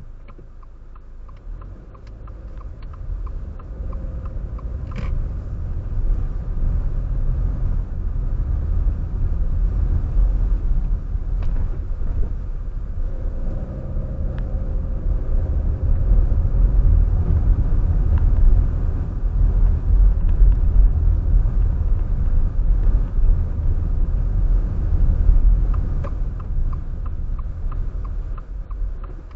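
Car driving on the road: low engine and road rumble that builds over the first few seconds as it picks up speed, then holds steady and eases off near the end. Faint regular ticking can be heard near the start and again near the end.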